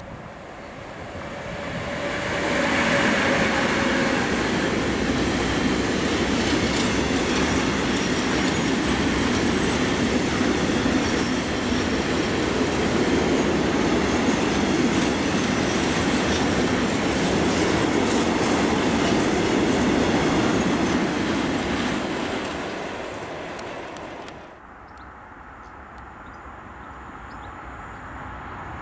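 Class 185 electric locomotive passing close by, followed by a long freight train of tank wagons rolling past with steady wheel-on-rail noise for about twenty seconds before fading. About three-quarters of the way in, the sound cuts to a quieter, slowly growing rumble of another freight train approaching from a distance.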